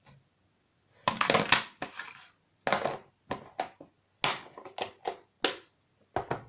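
Homemade borax slime being pushed and squished into its container by hand: a run of about ten short, sharp noises, the first and longest about a second in.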